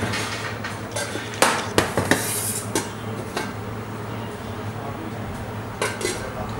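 Kitchen clatter: metal utensils and containers clinking in a few sharp knocks, the loudest about a second and a half in, over a steady low hum.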